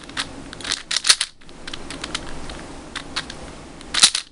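Plastic clicking and clacking of a Moyu Weisu 4x4x4 speedcube's layers being turned and pushed past offset layers in a corner-cutting test. The louder clacks come about a second in and again near the end.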